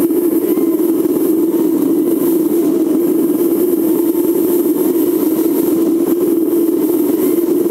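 Camper's engine and tyres making a steady, unbroken drone while driving through a road tunnel.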